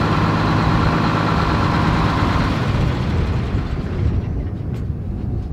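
American LaFrance fire engine idling as a low, steady rumble, with a hiss that fades away over the first few seconds.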